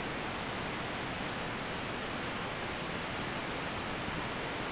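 Steady, even hiss of outdoor background noise, with no distinct sound standing out of it.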